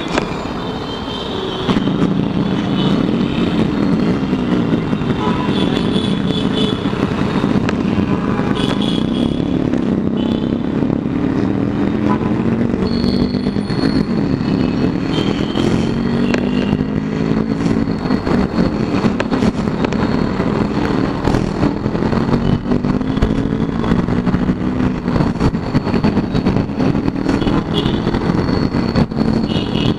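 Motorcycle engine running under way in traffic. It gets louder about two seconds in, and its pitch rises and falls over and over with throttle and gear changes.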